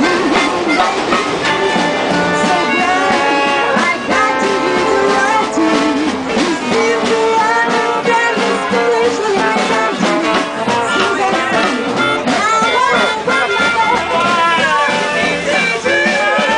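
A live jazz band playing a swing tune, led by brass horns, with notes that bend up and down in pitch.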